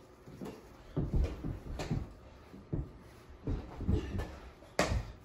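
A basketball dribbled on a carpeted floor, with feet shuffling, a series of dull, irregular thumps about every half second to second, and a sharper knock near the end.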